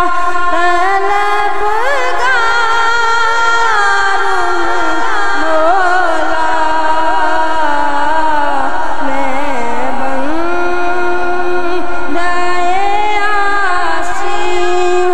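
A young male voice sings a hamd, a devotional hymn in praise of God, solo into a microphone. He holds long notes with wavering ornaments and slides between them.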